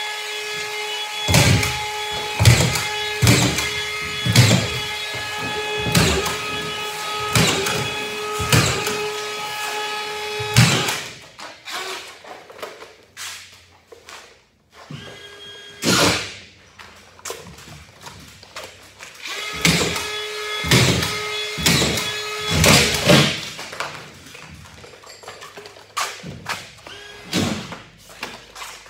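Cordless collated drywall screw gun running with a steady whine, with a sharp knock about once a second as screws are driven into the ceiling drywall. The whine stops about ten seconds in, leaving scattered knocks and two brief runs of the motor.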